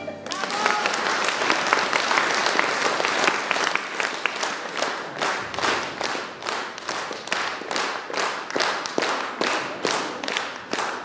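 Audience applause: at first a dense, ragged clapping, which from about halfway settles into rhythmic clapping in unison, a little over two claps a second.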